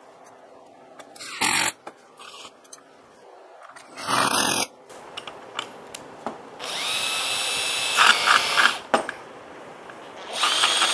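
Cordless drill in two short bursts, driving screws, then spinning up with a rising whine and running steadily twice while turning the shaft of a hand-crank meat mincer.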